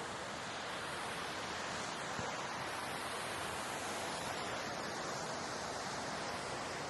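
Steady rush of water pouring through a canal lock as it fills or empties, running evenly with no breaks.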